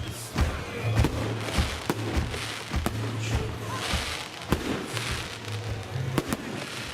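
Fireworks salute: a string of sharp bangs and pops from bursting shells at irregular intervals, with a stretch of crackling hiss in the middle.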